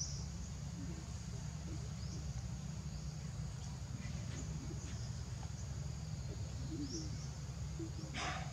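Forest ambience: a steady high insect drone with a few short bird-like chirps scattered through, over a steady low rumble. A brief noisy burst comes near the end.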